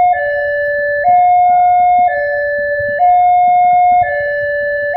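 Electronic two-tone warning alarm of a railway level crossing, alternating steadily between a higher and a lower tone about once a second, as a train approaches.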